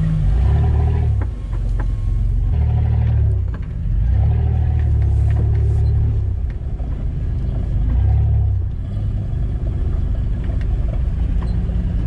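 Off-road 4x4's engine heard from inside the cabin, revved in four throttle bursts of one to two seconds each as it drives over rough ground. It settles to a steadier, lower run in the last few seconds.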